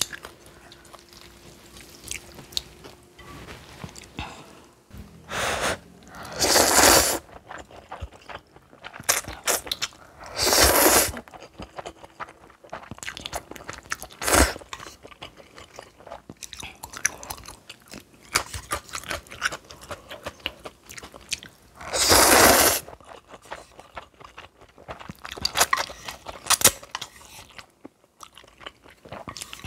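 Close-miked eating of spicy stir-fried noodles and kimchi: steady chewing and crunching, broken by about five louder noisy bursts, each half a second to a second long.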